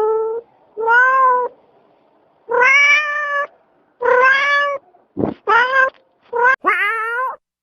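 Domestic cat meowing over and over, about seven meows in all, each under a second long.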